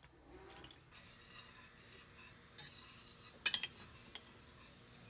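Wire whisk stirring sauce in a stainless steel saucepan, with a few light metal clinks of the whisk against the pan. A quick cluster of clinks about three and a half seconds in is the loudest.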